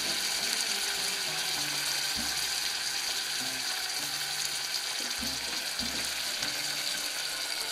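Crushed garlic and tomato paste sizzling steadily in hot oil in a small stainless-steel pot.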